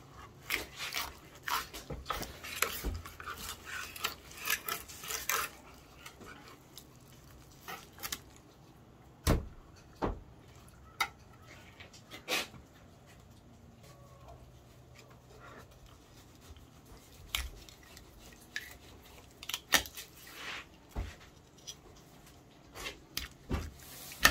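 Fillet knife cutting through a walleye on a plastic cutting board. A quick run of scraping clicks fills the first five seconds or so, then single sharp knocks and clicks of the blade on the fish and board come every few seconds.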